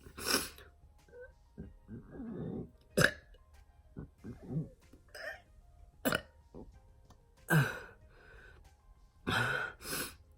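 A man burping deliberately over and over: about ten short belches, a second or so apart, the loudest about three seconds in and about seven and a half seconds in. Faint background music plays underneath.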